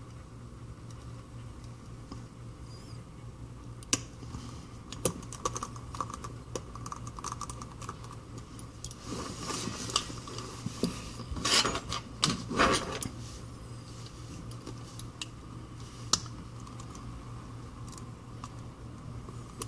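Small metal tools and phone parts clicking and tapping against each other and a work surface during hand reassembly of an iPhone 5c: irregular light ticks, busiest in the middle, over a steady low hum.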